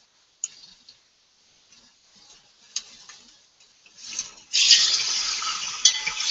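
Chuck roast searing in a hot enameled Dutch oven while it is turned with metal tongs: a few light clicks of the tongs on the pot, then a loud sizzle swells up about four and a half seconds in as the end of the meat is pressed onto the hot pan.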